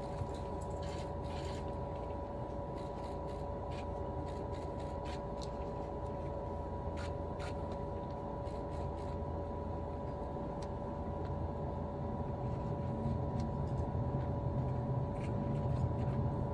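Cabin noise of the L0 series maglev train pulling away from standstill and slowly gathering speed: a steady low rumble with two constant hum tones, and scattered light clicks and creaks.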